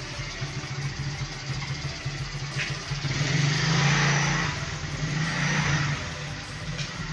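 Small motorcycle engine running, swelling louder about four seconds in as it is revved, with a brief click a little after two and a half seconds.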